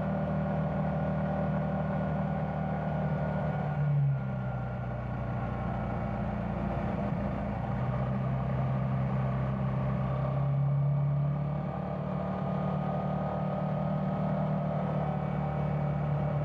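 Yamaha Tricity 300 scooter's single-cylinder engine running steadily at cruising speed from the rider's position. Its pitch drops a little about four seconds in and rises and falls again around ten to twelve seconds.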